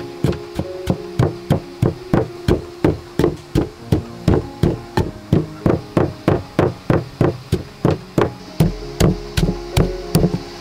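Pestle pounding in a mortar, grinding the chili sauce ingredients: steady, evenly spaced thuds at about three to four strikes a second.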